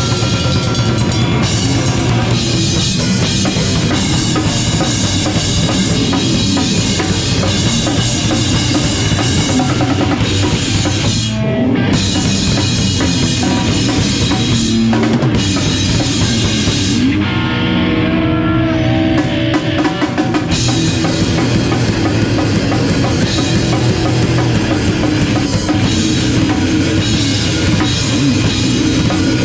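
Live rock band playing loud, driven by a full drum kit with bass drum and snare. A little past halfway the drums and cymbals drop back for a few seconds and held notes ring out, then the full band comes back in.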